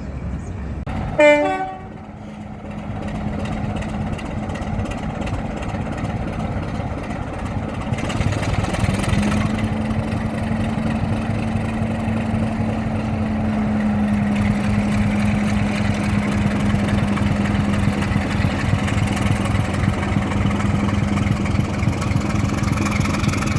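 A short, loud train toot about a second in, then a locomotive running steadily, its note rising and getting louder about nine seconds in.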